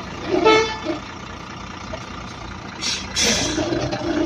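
A short, steady-pitched vehicle horn toot about half a second in, followed by a brief burst of noise near three seconds in.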